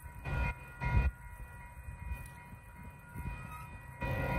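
Metra commuter train heard at a distance: a steady set of tones under a low rumble, with two short louder rushes about half a second and a second in, and the sound swelling near the end.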